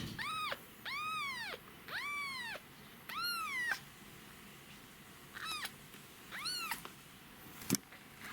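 A very young kitten meowing, six high thin calls that each rise and fall in pitch, the calls of a bottle-fed kitten searching for milk. A short click sounds near the end.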